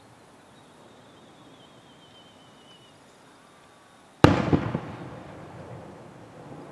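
A single aerial firework shell bursting with a sharp boom about four seconds in, followed by a few smaller pops and a rumbling echo that dies away. Before it, a faint wavering whistle.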